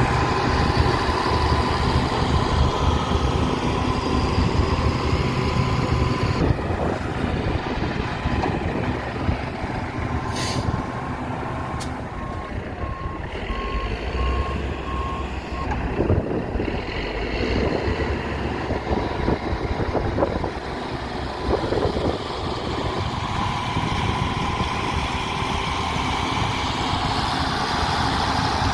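Diesel engine of a heavy earthmoving machine running steadily under work. Roughly midway, a reversing alarm sounds a short row of evenly spaced beeps.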